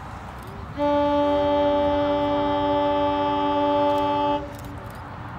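Locomotive horn sounding one long blast of about three and a half seconds: a steady chord of several notes that starts suddenly about a second in and cuts off suddenly, one of the lower notes coming in a moment after the others. It comes from a heritage train led by NSW 45 class diesel 4501.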